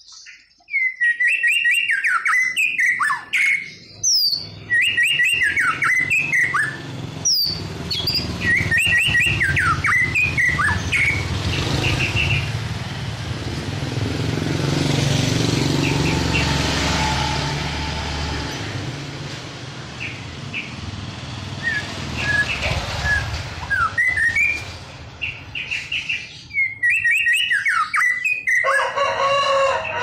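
White-rumped shama singing in bursts of quick whistled phrases, the notes sweeping up and down, with short pauses between them. In the middle a passing motor vehicle swells and fades, nearly covering the song, and near the end a rooster crows.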